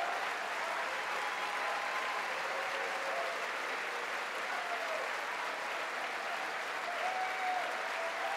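A large crowd applauding steadily, with scattered voices calling out over the clapping.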